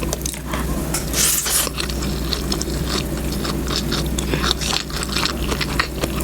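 Close-miked eating: chewing with many small wet clicks, and a short scrape about a second in, over a steady low hum.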